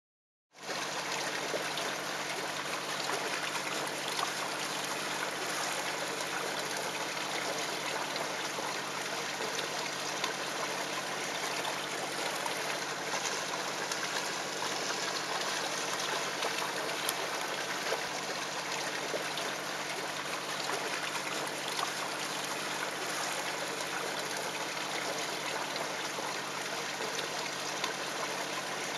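Steady rushing of water with a low, even hum beneath it, starting about half a second in and not changing.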